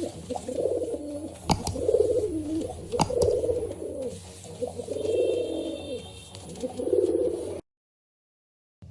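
Pigeon cooing in a series of repeated coos, with two sharp clicks about one and a half and three seconds in. The recording cuts off suddenly about a second before the end.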